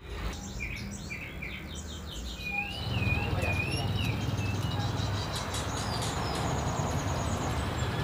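Several caged songbirds chirping and calling, with a wavering trill about two and a half seconds in. A steady rumble of background noise rises about three seconds in.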